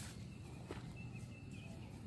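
Faint outdoor ambience with a few short, distant bird chirps in the second half.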